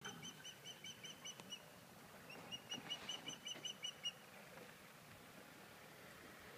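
Osprey calling from its nest: two runs of short, high whistled notes, about five a second, the second run longer than the first.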